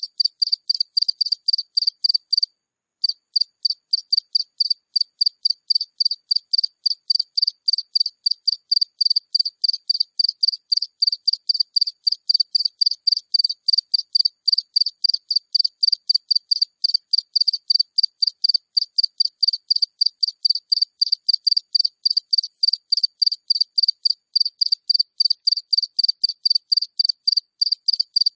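A single house cricket (Acheta) chirping close up: a steady run of short, high chirps at about three to four a second, with one brief pause about two and a half seconds in.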